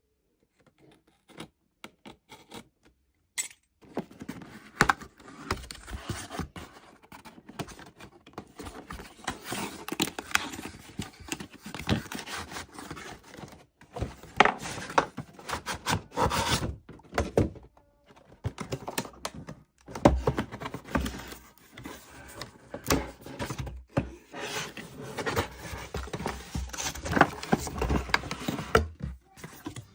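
Toys and their packaging being handled: irregular knocks, clicks, scrapes and rustling, starting about four seconds in.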